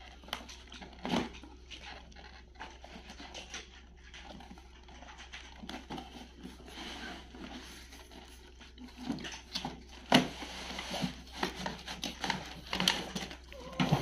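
Cardboard box of a toy kitchen set being handled and opened: irregular rustling, scraping and knocks of cardboard and plastic, with a sharper knock about ten seconds in.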